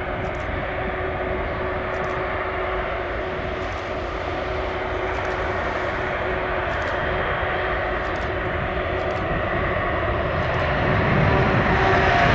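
Airbus A321neo jet airliner on short final and landing: a steady jet rush with a faint low hum, growing louder as it nears. Near the end, as the main wheels touch the runway, a whine sets in and rises in pitch.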